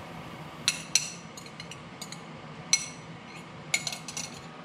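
Metal fork clinking and scraping against a ceramic bowl while egg and pecorino sauce is scraped out into the pan: a handful of short, sharp, ringing clinks at irregular intervals.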